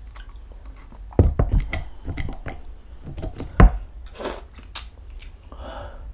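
Eating utensils clinking, knocking and scraping against a bowl and a beef bone while marrow is dug out, a run of irregular clicks with one sharp knock a little past halfway.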